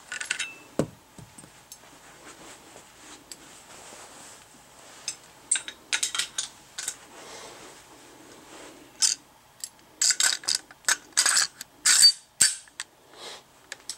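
Scattered metallic clicks and clacks from AR-15 parts being handled: the upper receiver and bolt carrier group knocking and sliding together. The clicks come in small groups, thickest in the last few seconds.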